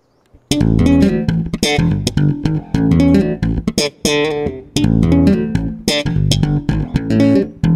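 Instrumental opening of a bass-and-voice duo song: a bass guitar plays a busy plucked line with sharp, percussive attacks, starting about half a second in.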